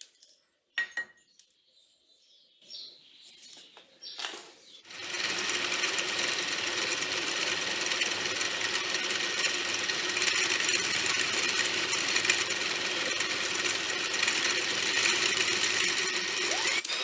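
A few light knocks, then about five seconds in a machine tool starts up and runs steadily, cutting metal. It begins winding down right at the end.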